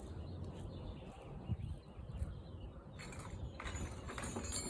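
Handling noise: a few sharp clicks and a stretch of light rattling over a low rumble, starting about three seconds in.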